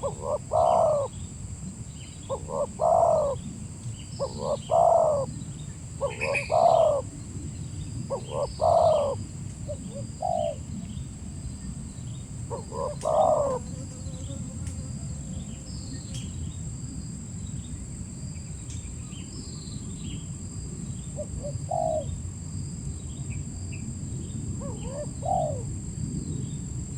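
Spotted dove (tekukur) cooing: a short cooing phrase repeated about every two seconds, then only a few scattered coos in the second half, with small birds chirping faintly higher up.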